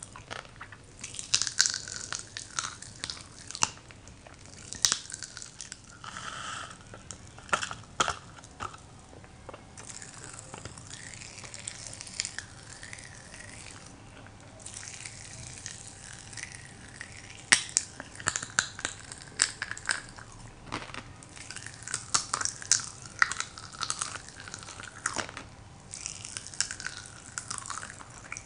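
Crack-Ups popping candy crackling in the mouth: many sharp little pops at irregular intervals, coming in clusters with a calmer stretch in the middle, mixed with wet chewing and mouth sounds.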